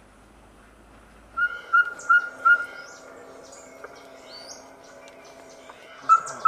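A bird calling a run of four loud, evenly spaced whistled notes on one pitch, about three a second. It starts again near the end with the same notes, over fainter chirps from other birds.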